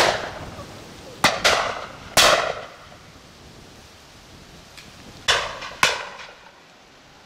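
Shotgun shots: one at the start, then a quick pair and a third between one and two seconds in, and another pair near five and a half seconds, each trailing off in a rolling echo.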